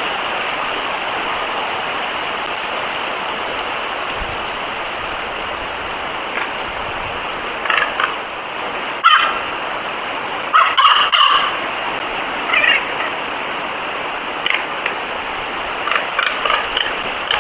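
Steady outdoor hiss with short animal calls breaking through several times in the second half.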